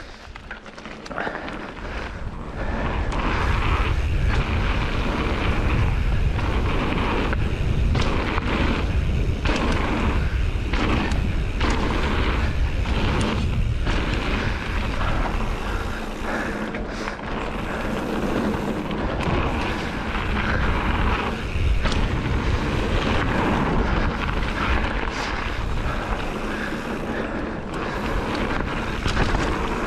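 Mountain bike descending a dirt trail at speed: wind rumbling on the camera microphone over tyre roar on dirt, with frequent knocks and rattles from the bike over bumps.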